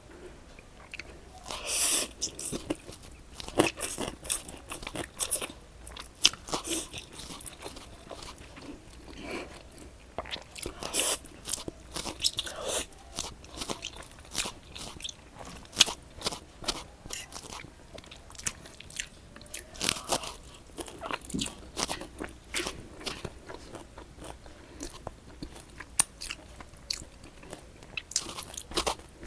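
Crunchy food being bitten and chewed close to the microphone, a long run of irregular crisp crunches.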